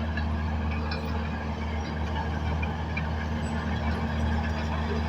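Bulldozer's diesel engine running steadily, a constant low drone.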